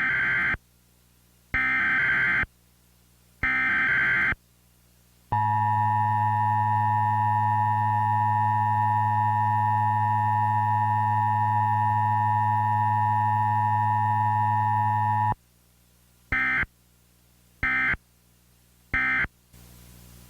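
Mock Emergency Alert System broadcast tones: three one-second bursts of buzzy SAME header data, then a steady two-tone attention signal for about ten seconds that cuts off abruptly, followed by three short end-of-message data bursts. Faint static follows near the end.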